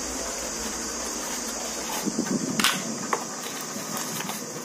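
Hands handling a phone's cardboard box and its plastic-wrapped accessories: light rustling and one sharp click about two and a half seconds in, over a steady hiss.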